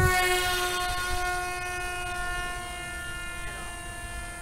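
Parrot Disco fixed-wing drone's electric motor and propeller whining at a steady pitch after throttling up, growing fainter as the drone flies away.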